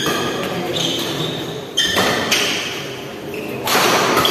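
Badminton doubles rally: sharp hits of rackets on the shuttlecock, one clear strike near the middle, with short high squeaks of shoes on the court floor. A broad swell of noise rises near the end.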